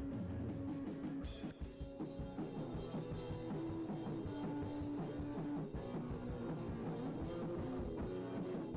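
Rock music with guitar and drums, playing with a steady beat.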